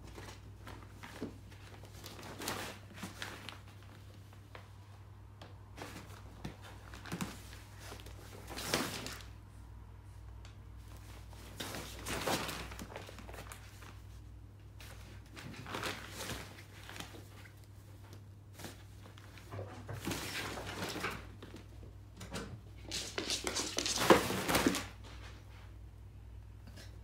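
Kittens scrabbling on and against a fabric softbox panel on a wooden floor: irregular bursts of fabric rustling, paw scuffing and light bumps, loudest a little before the end, over a low steady hum.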